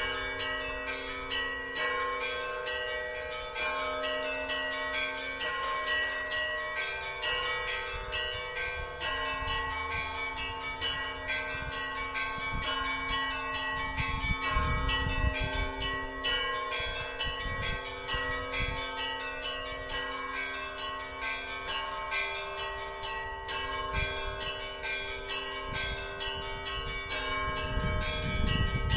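Russian Orthodox church bells ringing together: many bells of different pitches struck in a quick, continuous peal. Low rumbles come in about halfway through and again near the end.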